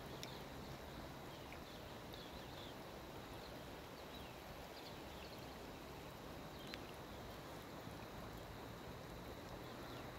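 Faint steady rush of a shallow river running over a stony bed, with scattered short high chirps from birds or insects.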